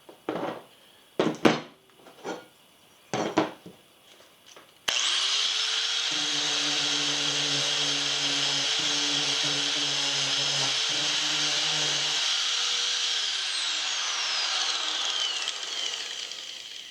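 A few handling knocks, then about five seconds in a 4½-inch Chicago Electric angle grinder, fitted with a 2-inch Roloc disc on an adapter, switches on suddenly and runs at speed with a steady whine. After about eight seconds it is switched off and winds down, its pitch falling.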